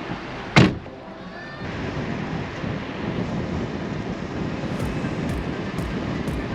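A sharp thump about half a second in, then the steady engine and road noise of a taxi driving off.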